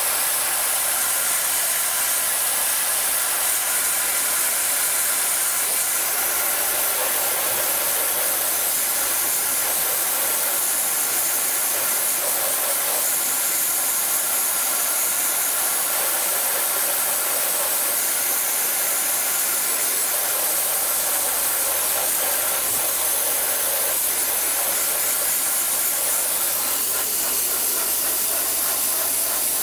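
Dry ice blasting gun firing continuously at a car's undercarriage: a steady, loud hiss of compressed air carrying dry ice pellets against the metal.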